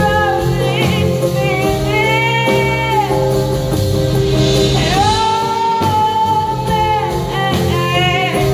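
Female vocalist singing long held notes that slide into pitch, over her own strummed acoustic guitar and a live backing band with drums.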